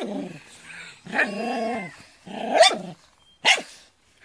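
Small dog barking at a fake cat in a few short, sharp barks, with a longer growling bark between them.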